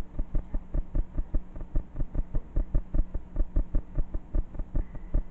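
Rapid, even thumping, about five low thumps a second, over a steady low hum: an audio glitch of a new camera's recording.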